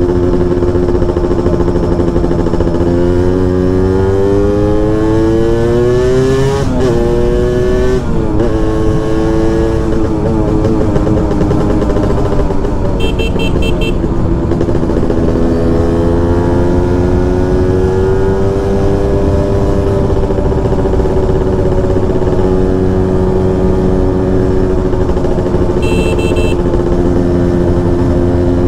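Honda Nova Dash 125's single-cylinder two-stroke engine through a DBS expansion-chamber exhaust, riding under way. The engine note climbs, dips sharply twice at gear changes about seven and eight seconds in, then holds a steady cruise that rises and falls gently.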